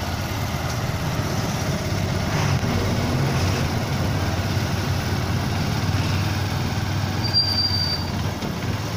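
Vehicle engine running steadily as it drives slowly along a street, heard from on board, with a brief high squeal about seven seconds in.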